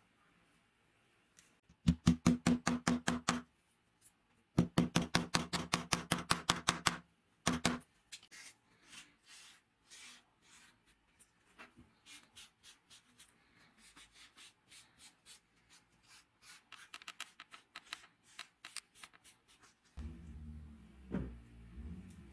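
Rapid back-and-forth hand rubbing strokes on wood, in two loud runs of about six strokes a second, then lighter, slower strokes. Near the end comes a duller handling sound with low thuds.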